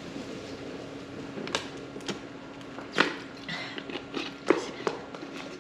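Thin plastic water bottle crackling and clicking as it is handled and its screw cap is turned back on: a handful of sharp cracks, the loudest about three seconds in, with a brief rustle after it, over a low steady hum.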